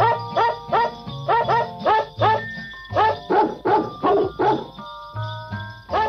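Music made of dog barks: short barks repeating in a quick rhythm, about three a second, over held tones and a bass line.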